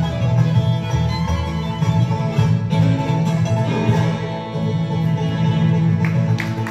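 Bluegrass band playing live: fiddle with acoustic guitars and upright bass.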